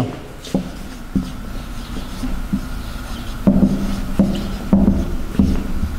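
Felt-tip marker writing on a whiteboard: rubbing strokes, with several short squeaky strokes in the second half.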